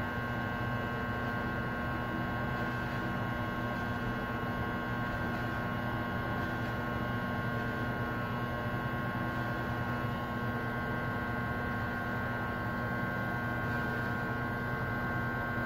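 Electric hair clippers running with a steady buzz during a haircut.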